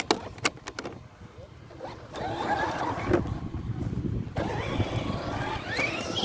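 Electric RC truck's motor whining as it drives on grass, its pitch wavering up and down, after a few sharp clicks in the first second as the truck is handled.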